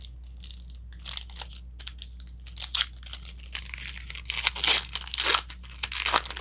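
Crinkling and rustling of plastic as trading cards and their wrapping or sleeves are handled, in short irregular crackles that grow louder and denser from about four seconds in.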